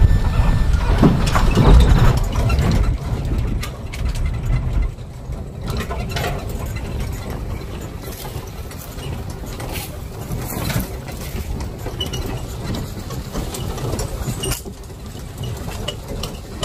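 Safari vehicle's engine running as it drives along a rough dirt track, with scattered knocks and rattles. It is loudest for the first few seconds, then settles lower.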